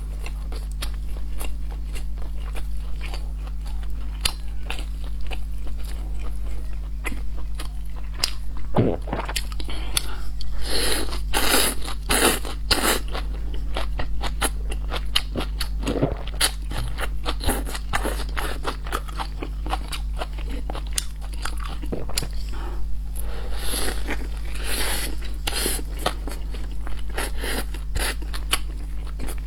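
Close-miked eating: a person biting and chewing, with many small wet clicks and crunches throughout. The bites are louder around a third of the way in and again near the end. A steady low hum runs underneath.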